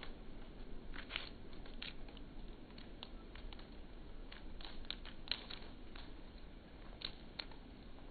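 A cat's claws scratching and catching on palm-tree bark as it climbs down backwards. The scrapes and clicks come irregularly, over a faint steady background.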